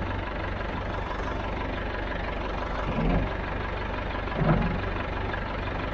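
Farm tractor engine running steadily at idle, a low, even hum. It grows briefly louder twice, about three seconds and four and a half seconds in.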